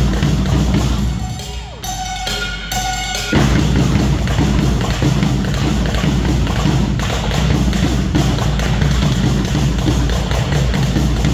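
Dance-routine music driven by heavy bass drum and drums. About a second in the beat drops out briefly, two short high notes sound, and then the full drums come back in.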